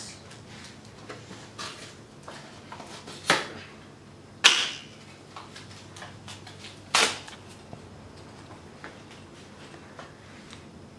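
A scooter bar clamp and its packaging being handled: scattered light clicks and rustles, with three louder knocks spread over the first seven seconds.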